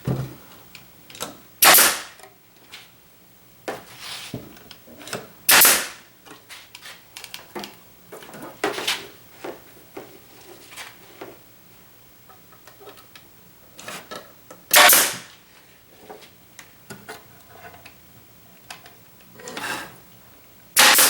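Nail gun firing nails into a wooden drawer divider: about six sharp single shots spaced several seconds apart, with small knocks and clicks of wood pieces being handled in between.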